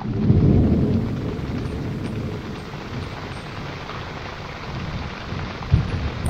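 Thunderstorm: a deep roll of thunder swells in the first second, over a steady hiss of rain and wind, with a short low thump near the end.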